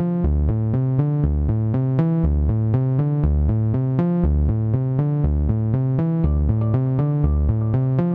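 Electronic background music: synthesizer notes over a steady drum-machine beat.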